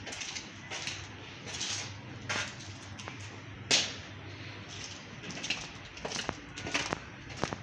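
Footsteps scuffing and gritting on a hard floor, about one and a half steps a second, the loudest about halfway through, with a few sharper clicks near the end. A faint steady low hum runs underneath.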